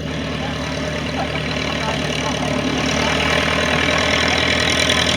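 A light aircraft's piston engine running steadily at low taxiing power, gradually getting louder, with a rising hiss of propeller and air noise.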